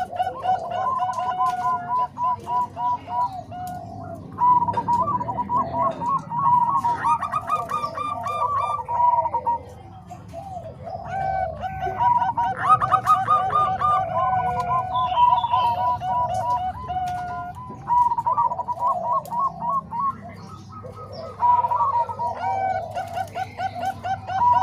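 Zebra doves (perkutut) cooing: quick runs of short, rhythmic coo notes, from more than one bird overlapping. There are brief lulls about ten and about twenty seconds in.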